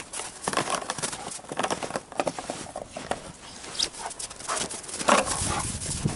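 Dog romping in crusted snow and thrashing a rag: a quick, irregular run of paw crunches and scuffs on the snow, loudest about five seconds in.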